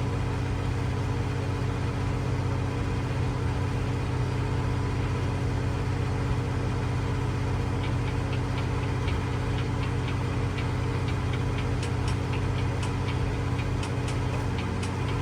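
Westerbeke diesel generator running steadily with a low, even hum. From about halfway, faint irregular small ticks sound over it.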